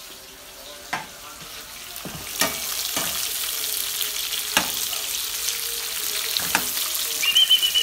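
Small link sausages sizzling in oil in a frying pan. The sizzle grows louder over the first few seconds, with a handful of sharp clicks through it. A thin, high, steady whine begins near the end.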